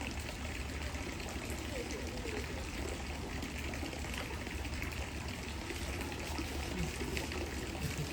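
Steady trickle of running water, an even splashing flow.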